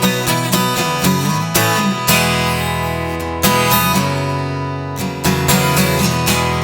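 Taylor 714ce acoustic guitar strummed in an instrumental passage of a song, chords struck every half second or so with no singing over them.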